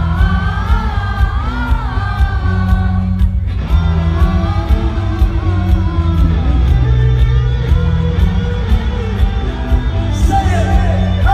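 Pop-rock song played loud through a concert sound system during a sound check: a singer's voice over heavy bass and a steady beat, with a short break about three and a half seconds in.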